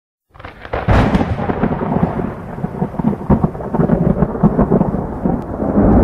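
Thunder sound effect: after a moment of silence it breaks in with a sharp crack about a second in, then a long rumble full of crackles.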